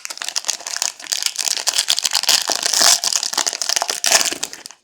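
Trading-card pack wrapper being crinkled and torn open: a dense, continuous crackle and rustle of plastic packaging.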